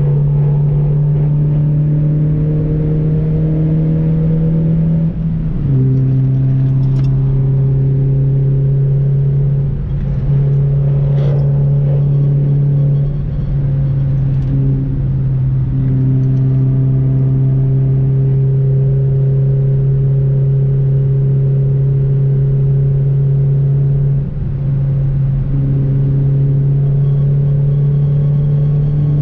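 Honda CR-Z's four-cylinder engine running hard at steady high revs, its drone holding pitch for several seconds at a time, with brief dips and pitch changes at gear changes about five, ten, thirteen, fifteen and twenty-four seconds in.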